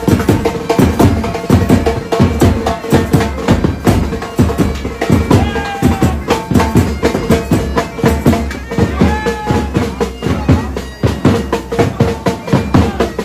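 Dance music with fast, dense drum beats over a steady held note, with a few short sliding melodic notes about six and nine seconds in.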